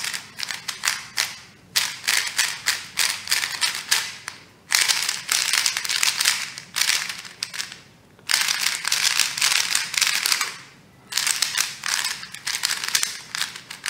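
QiYi MS 3x3 magnetic speed cube getting its first turns out of the box: a fast, continuous run of plastic clicks as its layers are turned, in four bursts with short pauses between them.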